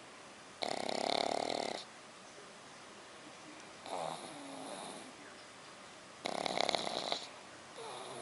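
Sleeping puppy snoring: two loud snores about a second long, some five seconds apart, alternating with softer, quieter breaths.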